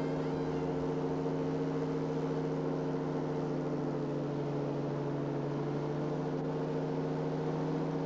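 Powered parachute's engine and propeller running steadily, an even drone that holds one pitch throughout.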